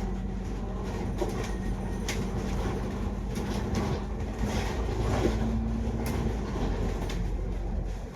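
Cabin noise inside a moving double-decker bus: a steady engine and driveline drone with a whine that steps up in pitch about halfway through, plus scattered rattles and clicks from the bodywork.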